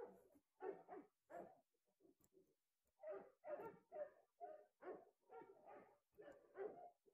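A small dog giving a string of short, faint barks and whines as a leash is clipped to its collar.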